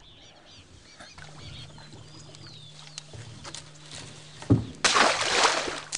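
Wetland field sounds: faint bird chirps and light clicks over a steady low hum, then a loud rush of noise lasting about a second near the end.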